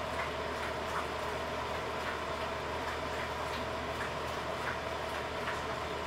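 Steady mechanical hum, like a computer fan or other room machinery, with faint scattered ticks every half second to a second.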